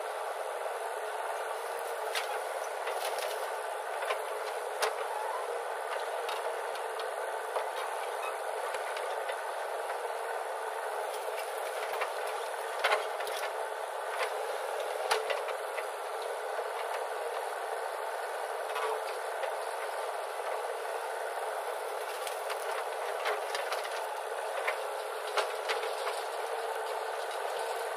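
JCB 3DX backhoe loader's diesel engine running steadily as it works its bucket, with irregular knocks as earth and stones are dug and dropped into a tractor's trolley.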